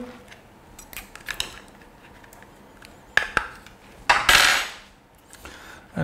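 A hard plastic wall switch panel being handled: a few light clicks, a sharp click about three seconds in, and a brief scraping rub just after four seconds.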